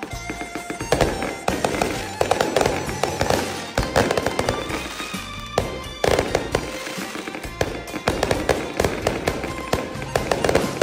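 Fireworks going off in rapid succession: dense sharp bangs and crackling pops, many per second, with louder clusters about a second in, near two seconds and again around six seconds.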